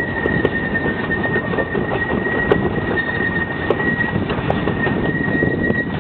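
Miniature steam locomotive and its train running along the track: a dense, rough clatter of exhaust and wheels on rail, with a steady high whine over it.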